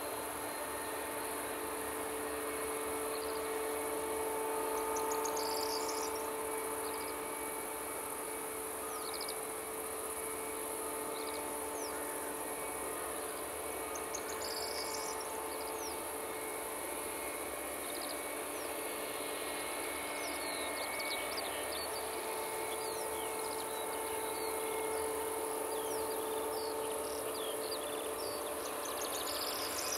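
Boeing 757-300's jet engines at taxi idle: a steady hum with a few held tones that swell a little at times. Under it runs a constant high chirring of insects, with short bird calls now and then.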